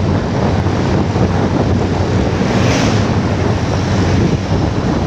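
Steady, loud wind buffeting the microphone of a moving motorcycle, over the bike's running and road noise.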